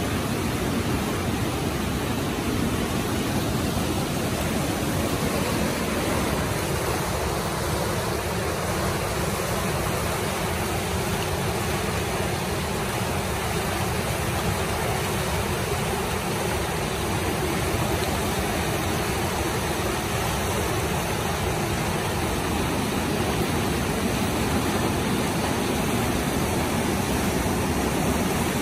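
Whitewater rapids of the Merced River rushing steadily over rocks, a dense, even wash of water noise.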